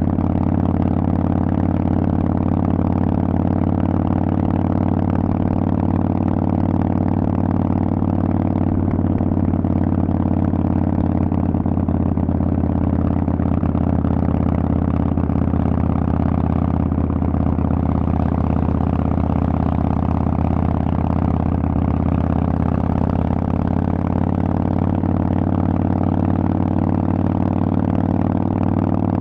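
Harley-Davidson Forty-Eight 1200's air-cooled V-twin running steadily through loud Vance & Hines exhaust pipes, holding an even engine speed throughout.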